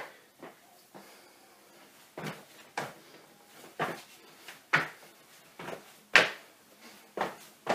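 Feet landing with sharp thuds on a hard tiled floor during a hopping footwork drill, about one landing a second at an uneven pace; the loudest comes a little after six seconds in.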